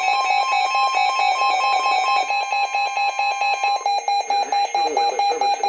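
Weather alert radio's alarm beeping rapidly and evenly as a severe thunderstorm warning comes in. Under it runs a steady high alert tone that cuts off about four seconds in, after which the broadcast voice begins faintly beneath the beeps.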